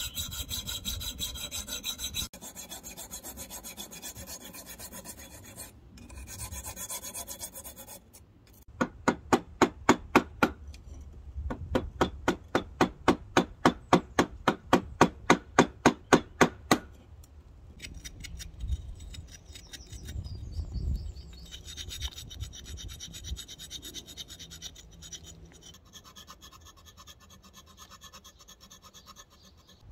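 Hand carving tools working a porous London stock brick: a riffler file rasping at first, then a run of louder, evenly spaced scraping strokes at about three a second for several seconds, then lighter, irregular scraping.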